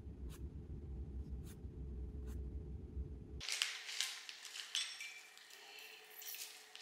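Apple Pencil tapping on an iPad screen: a few light, sharp taps over a low steady hum. About three and a half seconds in, the hum stops and gives way to soft rustling and light clicks.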